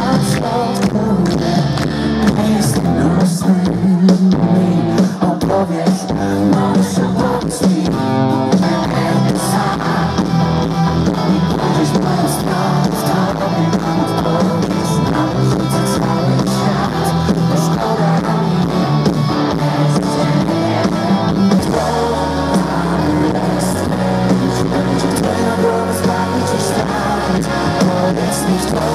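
Live pop-rock band playing a song with male lead vocals over electric guitars, bass, keyboards and a steady drum beat, heard from among the audience.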